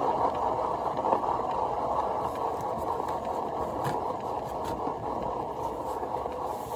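Paint-pouring turntable spinning a freshly coated canvas, giving a steady rumble that eases off slightly near the end.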